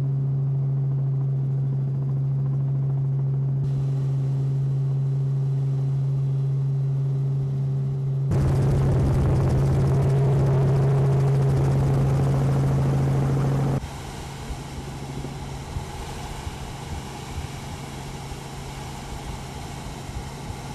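Steady low drone of an aircraft's engine heard from on board. About eight seconds in it turns louder with a rushing noise over it, and about fourteen seconds in it drops abruptly to a quieter, flatter noise.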